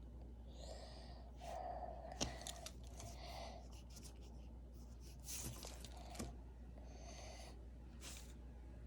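Faint scratching and rubbing strokes on paper from hand drawing and erasing: several short sweeps, with a sharp tap a little over two seconds in.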